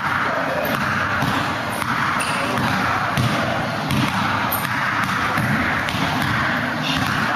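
A basketball dribbled repeatedly on a hard indoor court, over a steady background noise.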